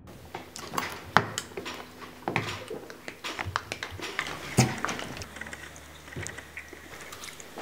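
A metal spoon clicking and scraping against a small plastic cup of applesauce while someone eats from it, mouth sounds mixed in. The clicks are quick and irregular, the sharpest about a second in and about halfway through.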